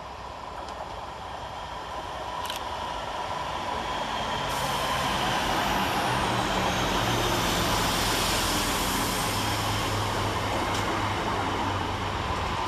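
Northern Class 323 electric multiple unit arriving, the rumble of its run growing louder over the first few seconds and then holding, with a whine that falls in pitch as it slows.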